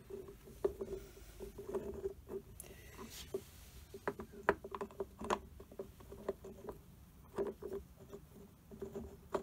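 Irregular light metallic clicks, knocks and a short scrape as cast-iron and steel parts of a lathe apron's half-nut and cam assembly are turned and fitted by hand, over a faint steady hum.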